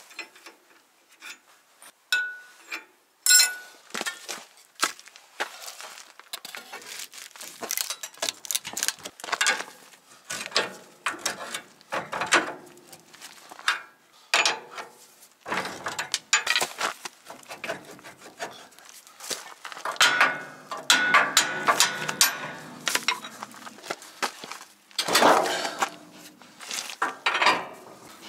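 Irregular metal clanks, clinks and scrapes of a snow plow's steel mounting pin and bracket being worked by hand and with a steel pry bar, with a few short squeaks.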